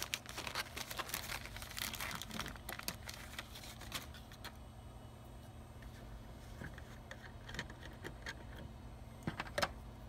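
A clear plastic bag of cotton swabs crinkling and rustling as a swab is pulled out, for about the first four seconds. Then quieter handling, with two sharp clicks near the end.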